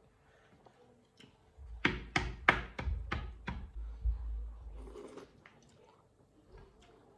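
Eating noises from a bowl of noodle soup eaten with chopsticks: a quick run of about six sharp knocks over a low rumble, near the middle, then quieter small eating sounds.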